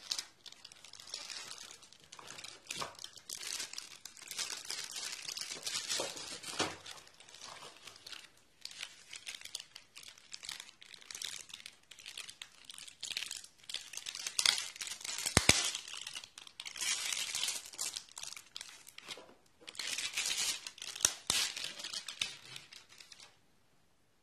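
Clear plastic wrapping crinkling and rustling as it is pulled off a shotgun microphone, with cardboard packaging handled. Irregular, with a sharp click about halfway through and another near the end; it stops shortly before the end.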